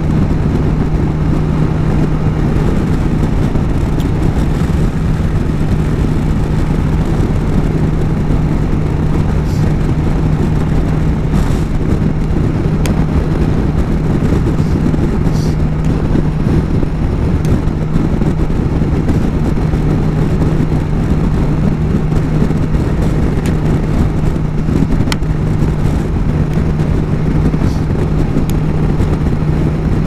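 BMW S1000 XR's inline-four engine running at steady cruising revs, one constant drone with no change in pitch, under heavy wind rush on the helmet-mounted microphone.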